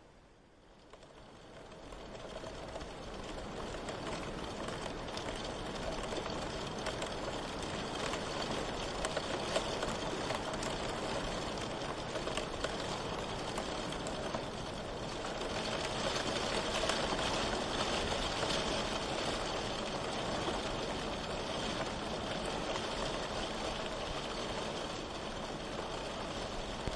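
Steady rain falling, a dense even hiss of drops, fading in from near silence over the first few seconds and swelling slightly about two-thirds of the way through.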